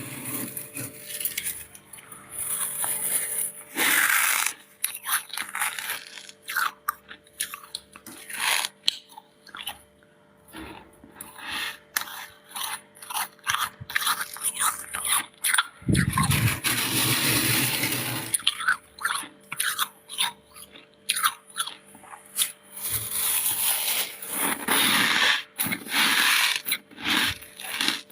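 Close-up biting and chewing of big chunks of freezer frost: a rapid run of short, crisp crunches, with a longer continuous crunching stretch a little past halfway.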